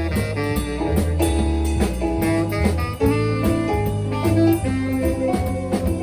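A band playing instrumental music with guitar over bass and drums, in a blues or jazz style.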